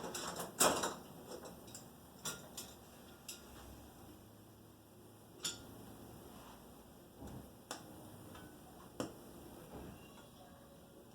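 Tools and parts being moved around on a workbench: scattered clinks and knocks, a loud cluster about half a second in, then single knocks every couple of seconds.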